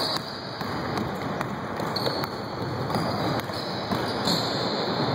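Basketball game: a ball bouncing on a gym floor and players' footsteps, heard as a few sharp knocks over a steady noisy background.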